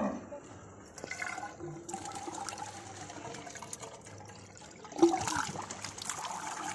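Cow-dung slurry flowing through a PVC pipe into a biogas digester, with a sharp thump about five seconds in, after which the rush of liquid grows louder.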